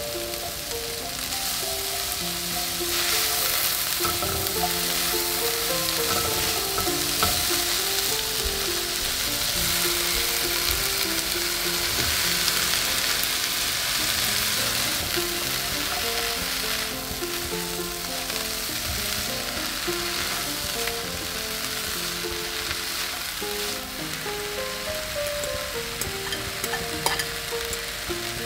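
Vegetables sizzling in hot oil in a frying pan, the sizzle swelling a few seconds in and easing off in the second half. Soft background music plays along.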